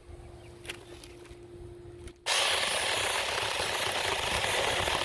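Cordless battery mini chainsaw: a faint steady motor hum, then about two seconds in a sudden loud, steady cutting noise as the chain bites into a branch.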